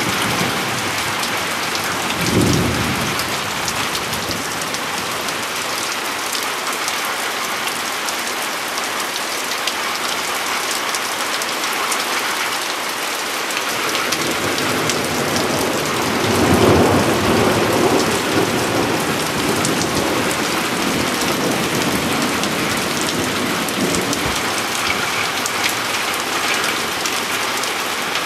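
Heavy thunderstorm rain pouring steadily, with a short low rumble about two seconds in and a longer roll of thunder about two-thirds of the way through.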